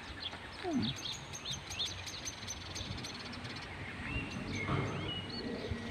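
Several birds chirping and calling, short high notes scattered throughout, over a steady low outdoor background noise.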